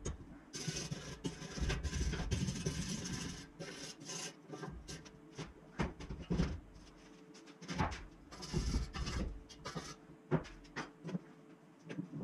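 Steel tube frame being handled on a workbench: a few seconds of rasping, scraping rubs of metal, then scattered clinks and knocks as parts are shifted and set down, with a faint steady hum in the middle.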